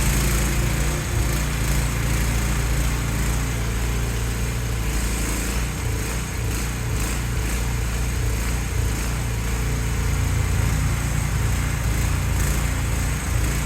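Small engine of an AGT mini excavator running steadily.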